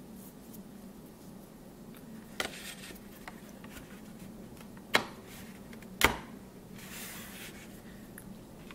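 A soft pastel stick being set back into its slot in an art kit tray: a small click with a short scrape, then two sharp clicks about a second apart and a brief soft brushing rustle.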